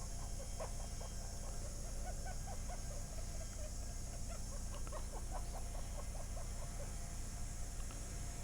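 Steady low electrical hum and hiss, with a run of quick, faint chirping clicks through most of the stretch.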